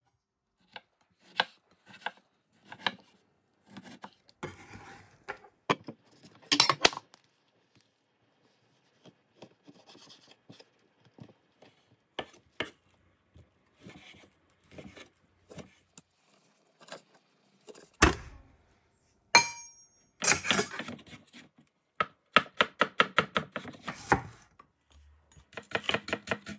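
Chef's knife cutting on a wooden chopping board: scattered knocks and slicing strokes as raw chicken is cut into cubes, with one short ringing clink about two-thirds of the way in. Near the end come fast, even runs of chopping, several strokes a second, as shallots are chopped finely.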